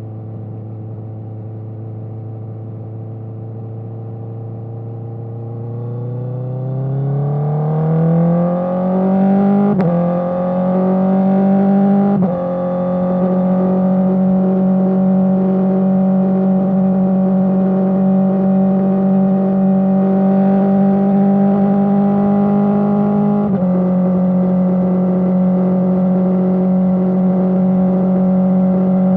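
Honda CBR650R inline-four engine through an Akrapovic exhaust. It runs at a steady mid-range pitch, then climbs smoothly in revs, with short breaks in the note about ten and twelve seconds in, and then holds a steady higher pitch to the end with one more brief break.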